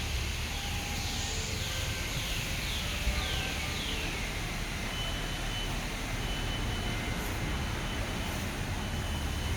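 Outdoor ambience with a steady low rumble, over which a bird gives about five falling whistled notes in a row, followed by a run of short, high, even pips about a second apart.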